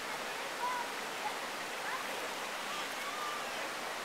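Steady rush of the Rocky Broad River running over rocks and boulders.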